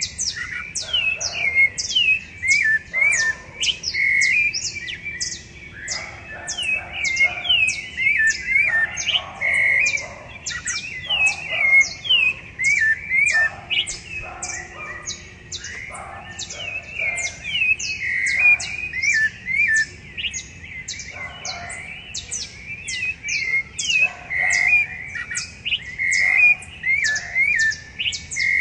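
Several rufous-bellied thrushes (sabiá-laranjeira) singing in a dawn chorus: overlapping fluty, whistled phrases follow one another without pause, over a dense stream of short high notes.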